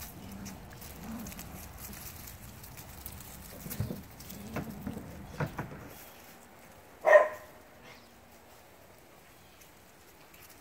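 Two puppies play-fighting: low puppy growls and scuffling for about six seconds, then one short, loud yip about seven seconds in.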